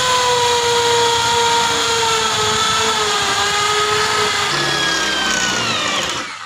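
Mailtank electric impact drill running at full speed as it bores into a cement brick, then into a steel bar: a steady high motor whine that sags slightly under load, changes a little past halfway, and falls in pitch as it winds down at the end.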